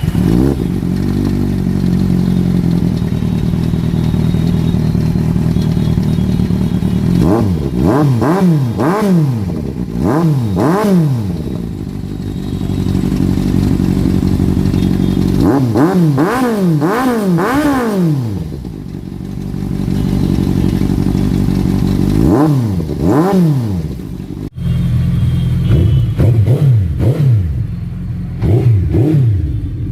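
Superbike engine idling, revved in several groups of quick throttle blips, each rising and falling in pitch. About two-thirds of the way in the sound cuts to a similar idle with shorter, faster blips.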